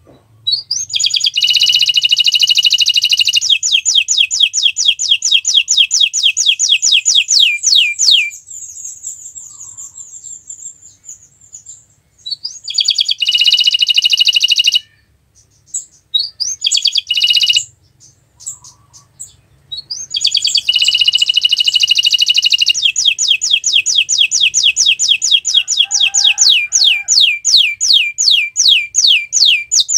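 Domestic canary singing loudly in long rolling trills of rapidly repeated high notes. A long phrase is followed by a pause and two short bursts, and then another long phrase that runs on.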